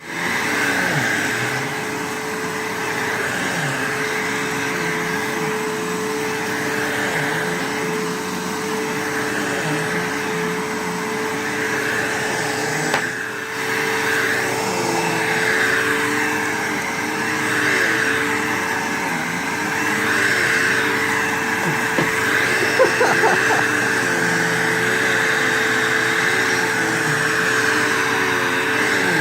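Vacuum cleaner running steadily, with a constant hum and a whooshing airflow; its lower tones waver as the nozzle moves. The sound dips briefly about halfway through, and there is a short sharper sound about three-quarters of the way through.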